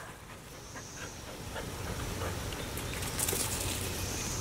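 Quiet outdoor background: a steady low hum, with a faint high buzz that comes and goes and a few soft clicks.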